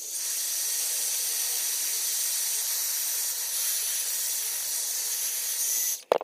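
Handheld electric heat gun blowing hot air steadily to dry fresh paint on a tumbler: a loud, even airy hiss that cuts off near the end, followed by a short click.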